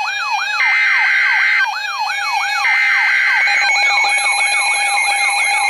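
Emergency Alert System SAME header data bursts from a NOAA weather radio broadcast, sounding twice for about a second each with a one-second pause between. Under them a siren sweeps up again and again, quickening after about four seconds.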